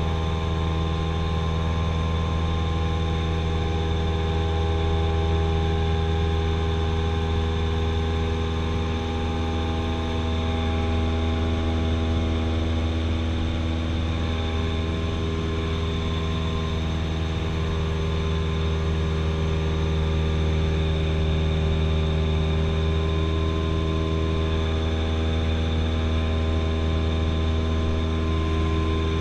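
Cessna 172SP in flight, heard from inside the cabin: its four-cylinder Lycoming engine and propeller make a steady, deep drone, with a slight shift in pitch about halfway through.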